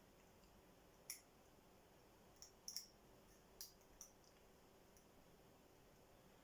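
Faint metallic clicks of a hook pick working the pins inside a five-pin tumbler lock cylinder during lock picking: a single click about a second in, then a quick cluster of clicks and two more near the middle.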